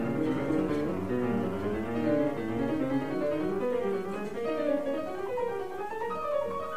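Background music: a piano playing a flowing passage of many short notes.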